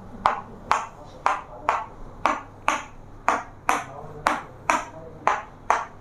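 Sharp, bright pings repeating steadily about twice a second, in slightly uneven pairs, each ringing out briefly.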